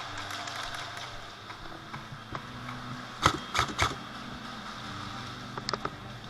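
Airsoft guns firing: three or four sharp pops in quick succession about halfway through, then a few fainter clicks near the end, over a steady hum.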